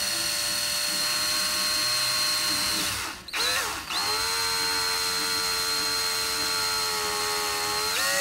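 Power drill-driver whining steadily as it drives a screw into the new door-handle hardware. It stops briefly about three seconds in, then starts again, and its pitch rises near the end.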